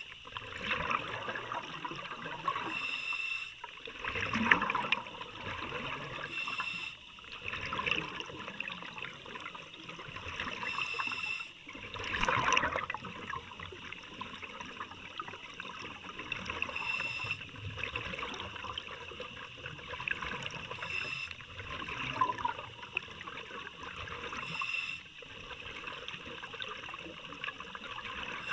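Water gurgling and trickling as heard by a microphone underwater, swelling and easing every couple of seconds, loudest about four and twelve seconds in.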